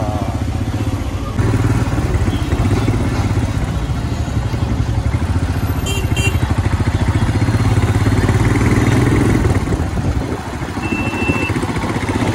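Motorcycle engine running at low road speed in traffic, a steady low pulsing with road and wind noise, swelling a little midway and easing off near the end.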